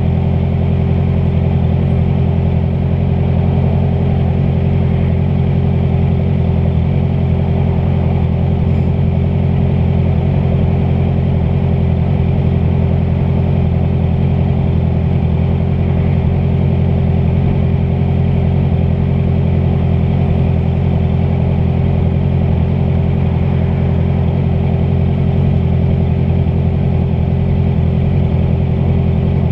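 Honda CBR650F's inline-four engine running at a steady cruising speed, holding one pitch, with wind noise on the microphone.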